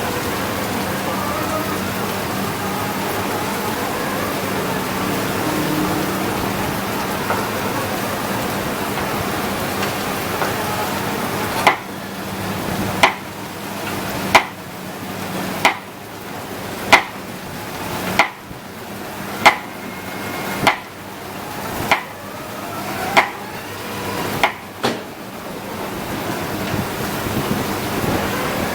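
Sany SR150C hydraulic rotary piling rig running steadily with an engine hum. After about 12 seconds, a regular run of about a dozen sharp metallic clanks, roughly 1.3 seconds apart, each ringing briefly.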